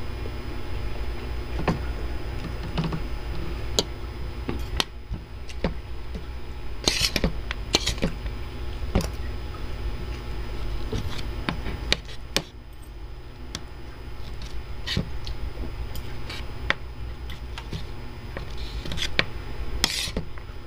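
Spoon and fork clicking and scraping on a ceramic plate of rice, in short scattered strokes, with a few longer scrapes, over a steady low hum.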